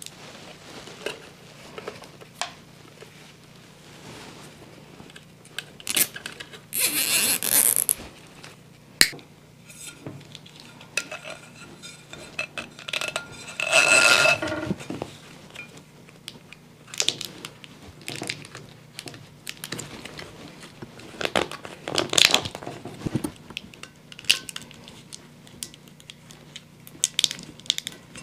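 Handling noises on a workbench: intermittent scraping, rustling and clinks as corrugated plastic wire loom is pulled through a rubber gasket and a metal mounting plate, and the plate is picked up and turned over. The loudest scrapes come about 7, 14 and 22 seconds in, over a low steady hum.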